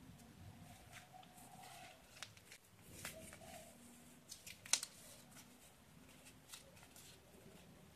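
A sheet of origami paper being handled and folded on a hard floor: soft rustling and crinkling, with scattered crackles and one sharp crackle about halfway through.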